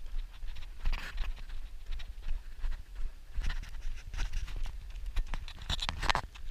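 Running footsteps of two runners on pavement, a run of repeated short footfalls, over a steady low rumble of wind and handling on an action camera's microphone.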